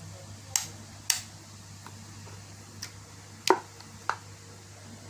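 Five sharp clicks at uneven spacing, the fourth the loudest, over a steady low hum.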